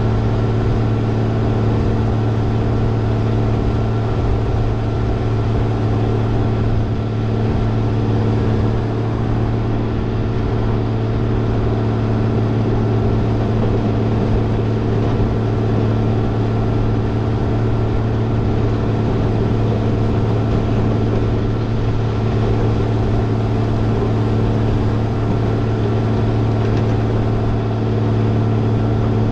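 Caterpillar 140H motor grader's diesel engine running steadily as the machine travels along a dirt road, heard from on the machine: a constant low drone with no change in speed.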